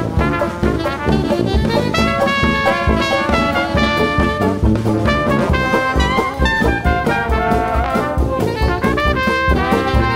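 Instrumental background music: brass-led jazz with a steady beat.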